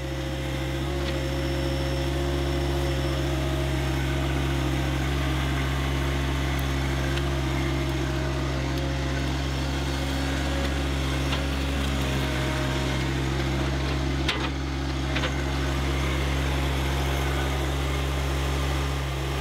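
John Deere 1025R compact tractor's three-cylinder diesel engine running steadily at a constant speed, with a single short knock about fourteen seconds in.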